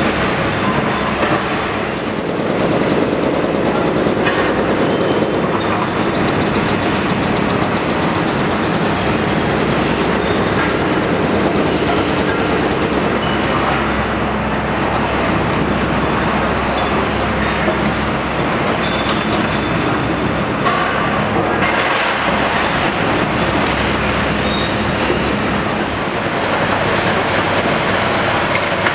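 Long-reach demolition excavator working: diesel engine running under load while its demolition tool crunches and grinds concrete rubble, with occasional short metal squeals.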